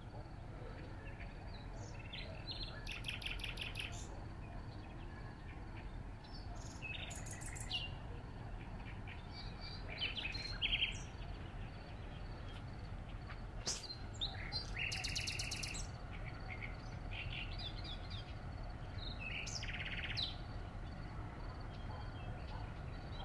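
Nightingale singing in short phrases separated by pauses, several phrases fast runs of repeated notes, over a steady low background rumble.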